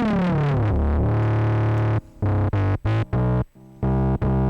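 Distorted synth bass from the Spire software synthesizer, run through tube-style distortion with its filter cutoff lowered. A long note steps down in pitch over the first two seconds, then after a short break come several short notes and a held one.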